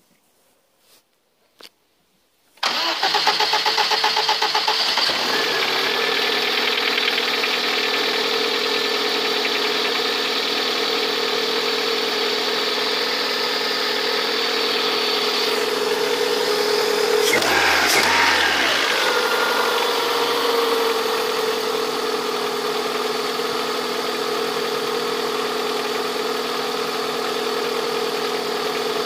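Lada VAZ-21126 1.6-litre 16-valve four-cylinder engine starting about two and a half seconds in after a few faint clicks. It runs at a fast idle that settles after a couple of seconds, is revved briefly about halfway through, then drops back to a steady idle. The owner hears a knock from this engine and is asking what it is.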